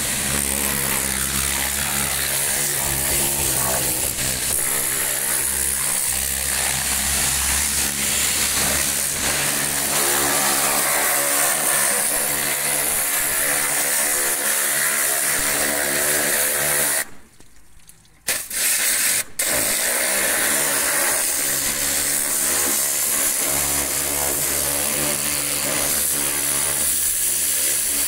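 Electric pressure washer running, its pump motor humming under the hiss of the high-pressure jet spraying a tractor's engine and chassis. It cuts out for about a second roughly two-thirds of the way through, then starts up again.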